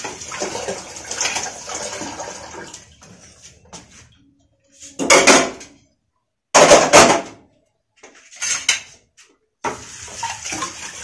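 Stainless-steel pots and utensils clattering in a kitchen sink under a running tap, with two louder spells of clanking around the middle. The sound drops out abruptly several times, as if cut.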